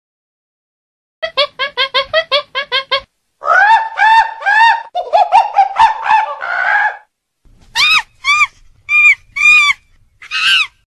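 High-pitched animal calls: a quick run of short chirps, about five a second, then longer rising-and-falling squeals, then about six spaced high squeals near the end.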